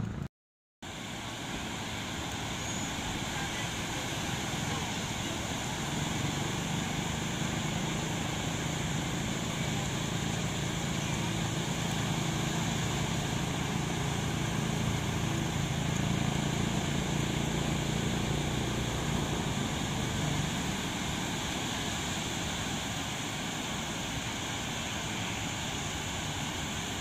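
Ocean surf breaking on a sandy beach: a steady wash of waves. A brief dropout to silence comes just after the start.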